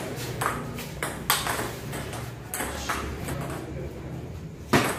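Table tennis ball clicking off the bats and the table top: a few sharp, unevenly spaced hits, the loudest near the end.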